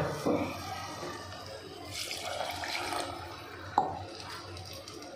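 Water being poured into a clay pot of fried biryani masala, with a short knock about four seconds in.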